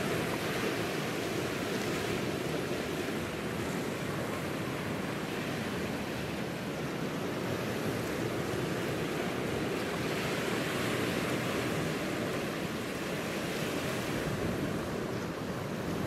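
Sea waves breaking over a rocky shore: a continuous rush of surf that swells as a wave breaks about a second in and again around ten seconds in.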